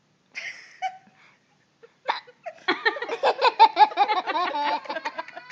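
A child's hiccup, one short sharp catch about two seconds in, followed by a long run of high-pitched laughter.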